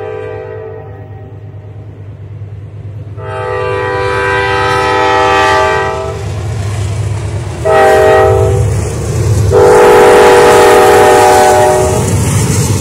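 Nathan K5 five-chime air horn on a GE C40-8 diesel freight locomotive sounding for a grade crossing: the tail of one blast, then a long, a short and a long blast. A low diesel engine rumble runs underneath as the locomotives approach the crossing.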